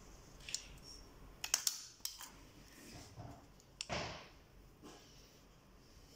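Caulking gun clicking and knocking as it is handled while pressing silicone sealant into a tile expansion joint: several sharp clicks, and a louder knock about four seconds in.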